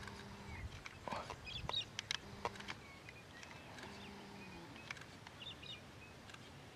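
Faint open-air ambience with scattered short bird chirps. A few sharp clicks come about one to two and a half seconds in, and a faint low hum comes and goes.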